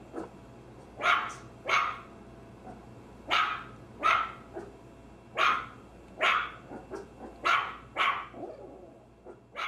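Maltese dog barking: about nine sharp barks, mostly in pairs less than a second apart.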